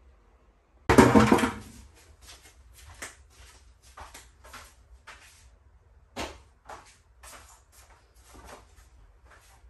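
A loud clatter about a second in, then a string of lighter knocks and bumps as storage containers and household items are picked up, moved and set down.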